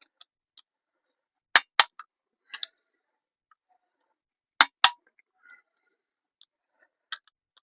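Click-type torque wrench breaking over at its set torque on bolts of a Honda VFR400R engine: sharp double clicks, two loud pairs a few seconds apart and a fainter one near the end.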